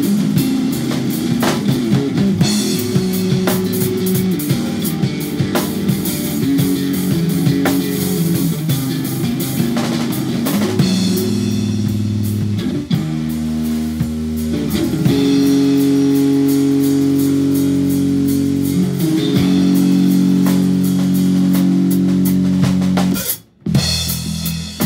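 Live electric bass and drum kit playing instrumental prog-metal: busy drumming over a shifting bass line, which gives way past the halfway point to long held bass notes. Both stop dead for a split second near the end, then come back in.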